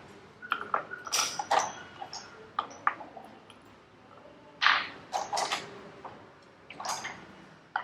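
Pegs being picked up and pushed into the holes of a peg board: irregular clicks and taps, several close together at times, the loudest about four and a half seconds in.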